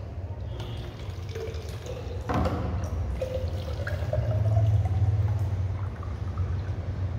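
Water poured from a stainless steel electric kettle into a plastic bottle, starting about two seconds in. The pitch of the filling bottle rises as it fills.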